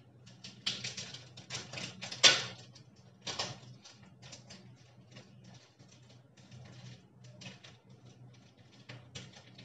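Clear plastic crinkling and rustling as it is handled, with irregular small clicks and crackles, the sharpest about two seconds in.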